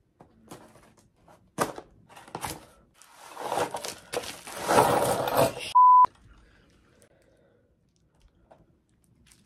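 A few scrapes and taps on a cardboard box, then plastic bubble-wrap packing being pulled out and crinkling for about three seconds. It cuts off in a short, loud beep about six seconds in.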